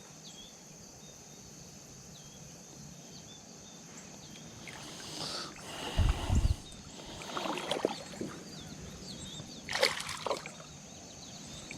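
Creek water splashing and sloshing in short stretches, with a heavy low thump about halfway through, over a steady high drone of insects.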